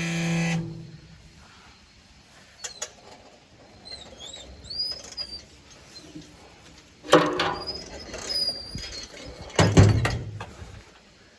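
A steady hum cuts off within the first second. Then come a few knocks and clatters, the loudest about seven and ten seconds in, with small birds chirping.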